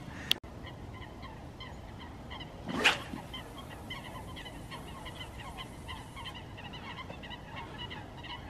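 A flock of geese calling in the distance: many short, overlapping honks. One louder, brief rushing sound comes about three seconds in.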